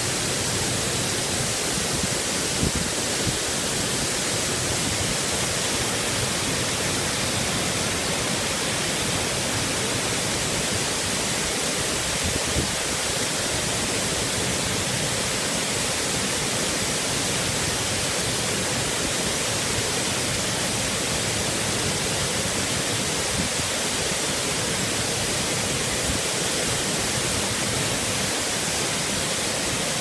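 Waterfall pouring over a rock ledge into a plunge pool: a steady, loud rush of falling water.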